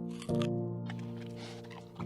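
Background music: sustained chords, with a new chord struck about a third of a second in.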